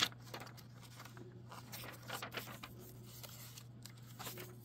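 Pages of a graphic novel being turned by hand: a few short paper rustles and swishes, one near the start and others spread through.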